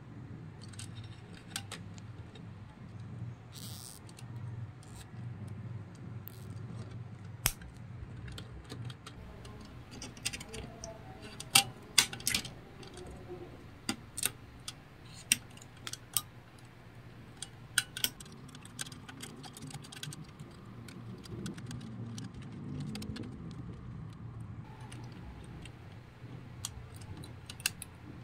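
Small metal tools and wires being handled while a radio's circuit board is rewired: scattered sharp clicks and snips from pliers against wires and components, the loudest cluster about halfway through, over a steady low hum.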